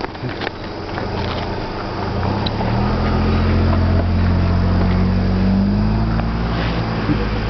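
An engine running, growing louder over the first few seconds, holding strong, then easing off slightly near the end, like a motor vehicle passing close by.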